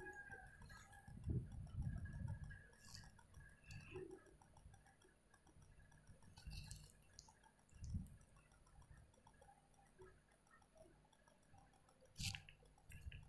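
Near silence: faint room tone with a few soft, scattered clicks and bumps.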